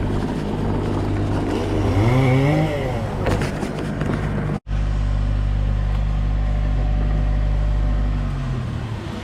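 Diesel engine of a tractor working on a tree-clearing job, running steadily. It revs up about two seconds in, cuts out for an instant in the middle, then runs evenly again and eases off near the end.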